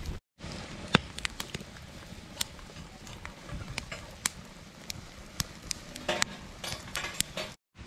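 Wood campfire crackling with sharp irregular pops under a steel wok, with pork pieces sizzling in the wok. The sound cuts out briefly twice, just after the start and near the end.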